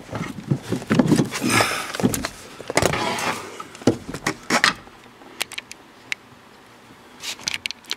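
Hand work inside a pickup cab: rustling and knocking of tools and parts for the first few seconds, then scattered sharp metal clicks and taps.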